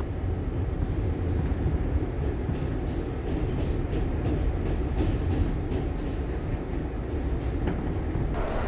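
Subway train running: a steady low rumble heard from inside the car, with a few faint clicks from the wheels on the track.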